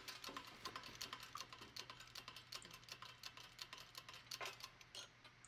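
Faint, quick, irregular clicking from a hand-pumped hydraulic shop press as it pushes a bearing off a pump shaft, dying away about four and a half seconds in.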